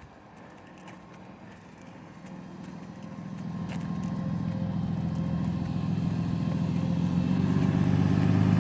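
Large RV's engine running as it drives in, a steady low hum that grows steadily louder from about two seconds in as the vehicle approaches.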